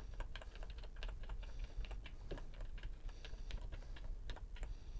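Keys of a TRS-80 Model 100 keyboard being pressed one after another, about four or five a second, in a quick run of light clicks as each key is tested in turn after a repair of its dead traces.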